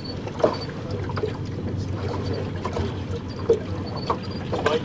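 Fishing boat's motor running slowly at trolling speed, with a steady low hum and wash. Scattered short knocks and splashes of water sound against the hull.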